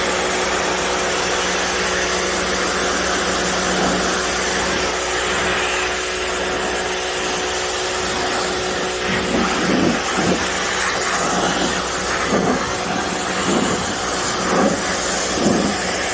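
Gas pressure washer running, a steady engine drone under the hiss of the high-pressure spray. From about nine seconds in, the spray sound swells in short, uneven bursts.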